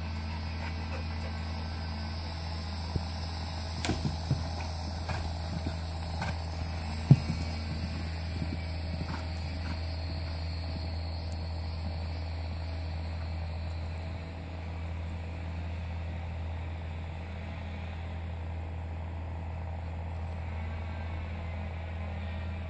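Small utility vehicle's engine idling, a steady low hum that fades away near the end, with a few sharp knocks early on.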